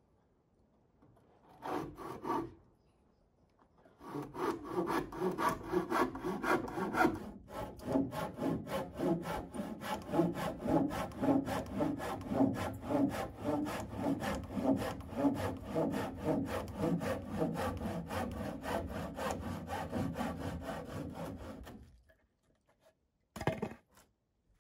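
Hand saw cutting the end of a wooden roof sheeting board at the cabin's gable, in steady back-and-forth strokes that run for about eighteen seconds and then stop. A brief scrape comes before the sawing starts.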